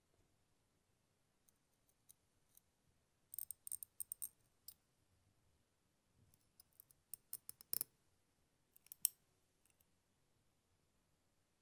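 Faint, sharp clicks and ticks of fine steel tweezers working a tiny photo-etched metal hose clamp around a model's hose. The clicks come in two quick clusters, one about three and a half seconds in and another from about six and a half to nine seconds in.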